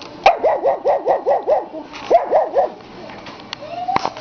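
Pug puppy barking: a fast run of about seven short barks, then three more after a brief pause, and a short rising call near the end. A single sharp knock comes just before the end.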